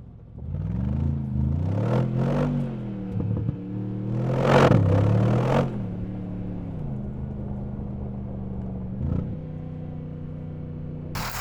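Mercedes-AMG G63's 4.0-litre twin-turbo V8 revving up and down several times, loudest about four to five seconds in, then settling into a steady, even drone at constant revs.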